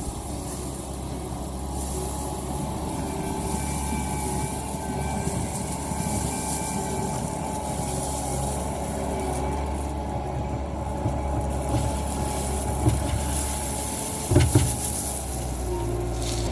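Bobcat T650 compact track loader's diesel engine running steadily under work, with a continuous wavering whine over it. A couple of short clanks come about fourteen seconds in.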